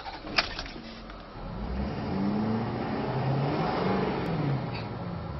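An ignition key clicks, then the 2011 Ford F550's 6.7-litre Power Stroke turbo-diesel V8 starts, its speed rising and falling back over a couple of seconds as it settles toward idle.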